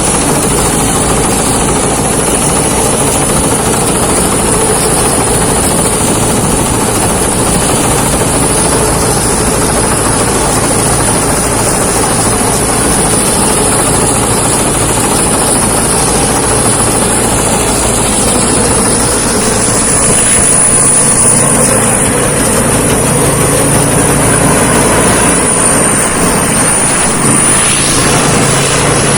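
Thai Seng rice combine harvester running steadily while cutting rice, a loud unbroken machine noise.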